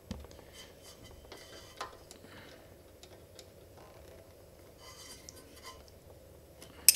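Faint metallic clicks and scrapes of a wrench and needle-nose pliers on a rocker-arm adjuster and lock nut while the valve clearance is set with a feeler gauge on a Honda GXC160 engine. One sharper metal click comes near the end.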